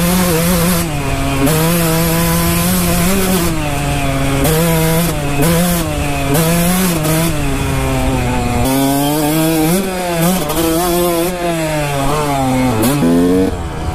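Kawasaki KX125 dirt bike's 125cc two-stroke single-cylinder engine running under way, its buzz rising and falling in pitch with the throttle and dipping sharply about 13 seconds in.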